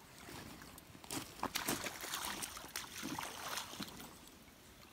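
A hooked coho salmon splashing and thrashing in shallow river water as it is drawn in to the bank, in irregular splashes, most of them between about one and four seconds in.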